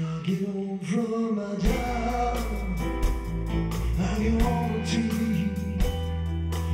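Live rock band music: electric guitars, bass guitar and drums with a saxophone, and a male singer. A deep bass line comes in a little under two seconds in.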